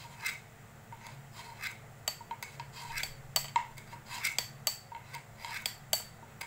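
Steel knife blade drawn repeatedly through the carbide sharpener slot built into the knife's sheath: a quick series of short scraping strokes, some ending in a brief high metallic ring. This is the blade being resharpened.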